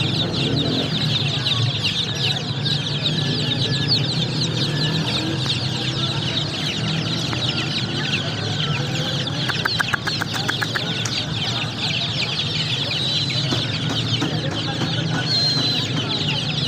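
A crowd of chicks peeping continuously, many short high falling chirps overlapping, over a steady low hum. About ten seconds in there is a quick run of about ten clicks.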